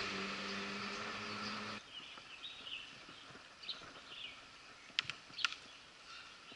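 A steady engine hum with hiss that cuts off abruptly just under two seconds in. It gives way to quieter outdoor ambience with scattered bird chirps and two sharp clicks about half a second apart.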